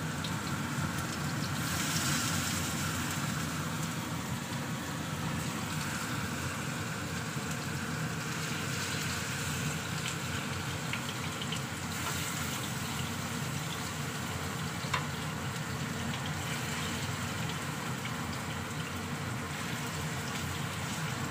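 Marinated chicken pieces sizzling steadily in hot oil in a frying pan, with a few light clicks of metal tongs as more pieces are laid in.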